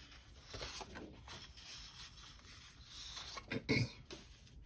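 Sheets of 12x12 cardstock being slid, turned over and laid down against their clear plastic sleeve: soft paper rubbing and rustling, with a brief louder bump about three-quarters of the way in.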